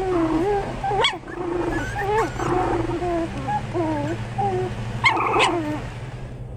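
A litter of American Eskimo puppies whining and squealing as they wrestle, a run of short wavering cries with sharper, louder ones about a second in and about five seconds in.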